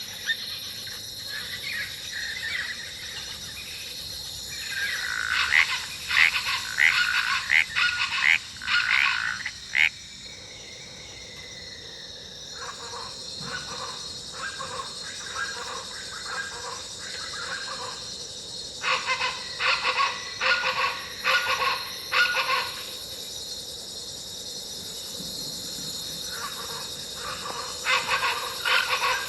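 Jungle ambience sound-effect loop: a steady high insect drone under repeated bouts of rapid, pulsing animal calls, coming in about five seconds in, again around thirteen, twenty and near the end.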